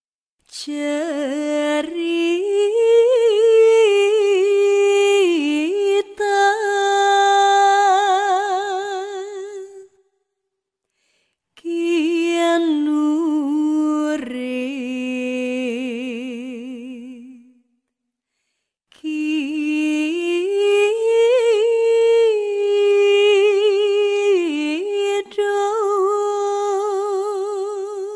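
One voice singing long, drawn-out melodic phrases with a strong waver in the pitch, unaccompanied. There are three phrases, with a short silence after about ten seconds and another at about eighteen seconds.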